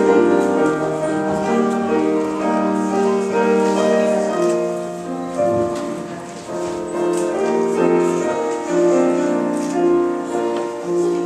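Instrumental keyboard music: held chords with a melody above them, changing every second or two.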